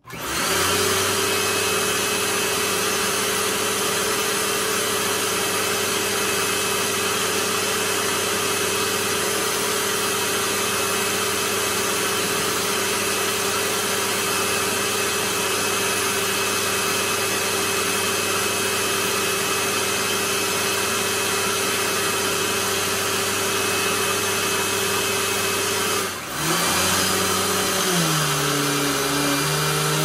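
Dirt Devil Vision Wide Glide bagless upright vacuum cleaner starting up and running steadily, its motor giving a steady high whine over a lower hum. About four seconds before the end the sound dips for a moment, then the motor note drops lower and holds.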